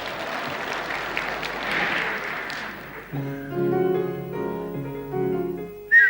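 Audience applause for about three seconds. Then an instrumental accompaniment starts playing held chords, and near the end a short, sharp whistle, the loudest sound, cuts in.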